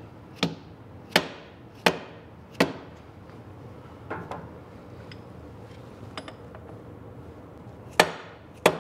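Hammer blows on the steel tie rod end, struck to keep the ball-joint pin from turning while its castle nut is tightened. Four hard, evenly spaced strikes, two lighter ones, a few small metallic clicks, then two more hard strikes near the end.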